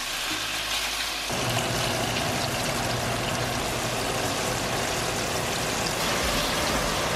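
Strips of uncured bacon sizzling and frying in a stainless steel pan, a steady hiss that grows fuller about a second in.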